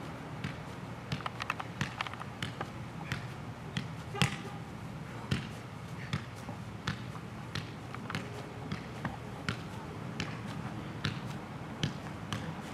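A size one soccer ball being juggled: short, sharp taps of foot and thigh on the ball, at an uneven pace of about one or two touches a second.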